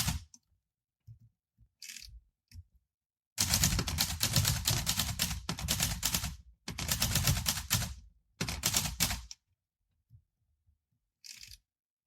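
Manual typewriter keys clacking as a poem is typed out: a few scattered strokes, then three fast runs of typing from about three and a half to nine seconds in, and one short stroke near the end.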